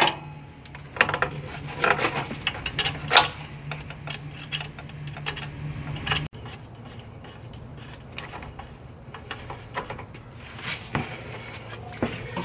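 Metal clicks and clinks of a wrench and fitting as the turbo coolant line is fitted and tightened onto the turbocharger outlet, with a steady low hum behind.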